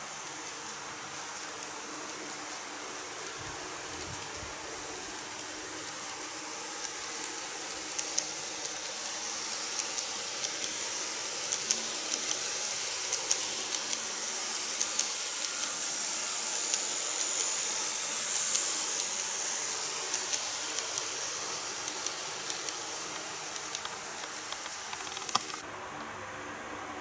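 N-gauge model train of the Keikyu 2100 series running on track: a high motor and wheel hiss with many sharp clicks of the wheels over rail joints, growing louder as it passes close and fading again. The hiss cuts off suddenly near the end.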